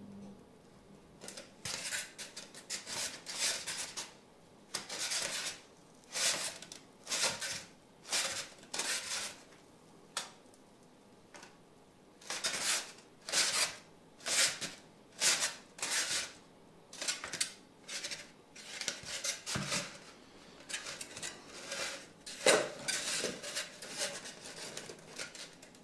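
Stiff foam nacelle sections rubbing and scraping against each other as they are handled and dry-fitted to check alignment before gluing. It comes as a long run of short scratchy bursts, with a pause of about two seconds midway.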